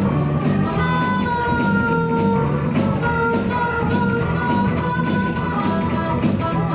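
Live blues band playing, with a harmonica holding long, bending notes over drums, bass and guitar, and a steady high percussion beat.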